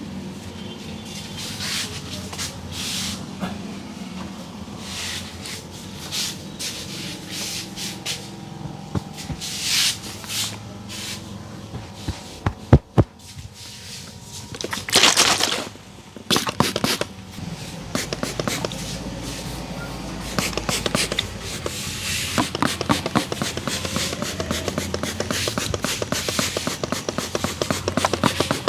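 A barber's hands rubbing and slapping a customer's head during a head massage. There are a couple of sharp knocks about halfway through and a short hiss just after, and fast rhythmic patting fills the last third.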